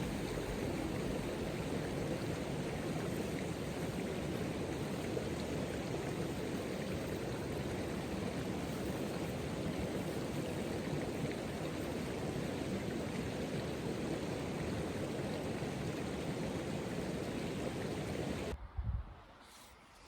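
Steady rushing of running water, like a hill stream, cutting off suddenly near the end with a brief low thump.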